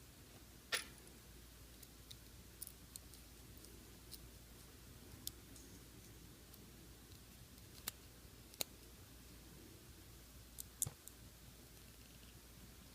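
Small plastic locomotive parts being handled and fitted by hand: a few sharp, faint clicks spaced out over quiet room tone.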